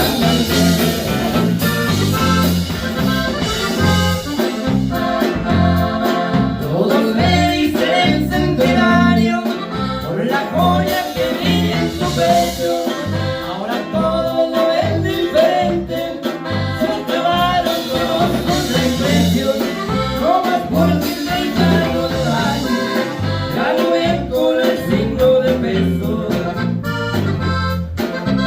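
Norteño music: an accordion playing the melody over a steady pulsing bass line.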